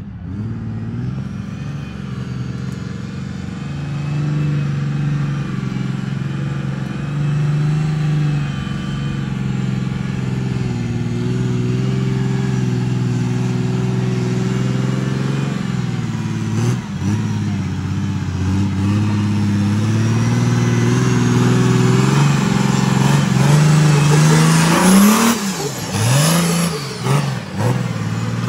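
Jeep-bodied rock-crawler buggy's engine working up a steep slickrock climb. It runs at low revs with the pitch drifting up and down and grows louder as the buggy approaches. Near the end come several quick, sharp throttle blips.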